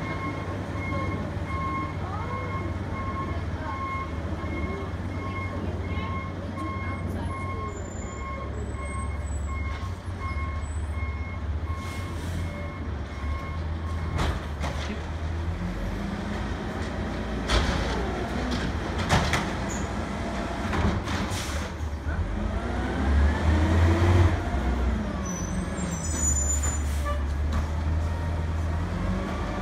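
Garbage truck engine running steadily, with a backup alarm beeping at an even pace through the first half. Then the engine revs up and down and there are several sharp clanks and hisses as the truck's lifting arm works, loudest about three-quarters of the way through. Birds chirp faintly.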